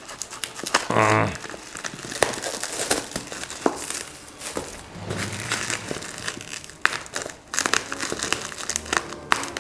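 Black plastic postal bag crinkling and tearing as a long parcel is pulled open by hand; the packing tape holds while the plastic pouch rips. A short vocal sound about a second in.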